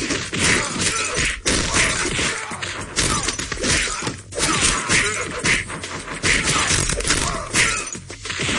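Animated fight sound effects: a dense, fast run of hits, thuds and shattering smashes, one after another.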